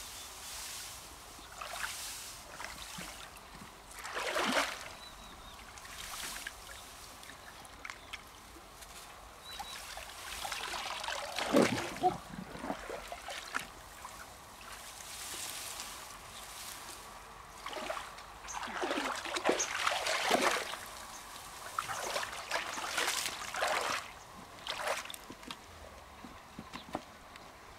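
Water splashing and trickling in irregular bursts a few seconds apart, the loudest about halfway through.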